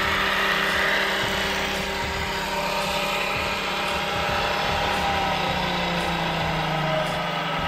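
Velvet Drive 5000 marine transmission spinning at about 2,000 rpm on an electric-motor-driven test stand: a steady mechanical hum with several whining tones.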